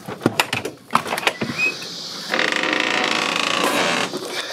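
A few knocks and clicks, then from about two seconds in a steady mechanical whir, as of a small motor running, which stops shortly before the end.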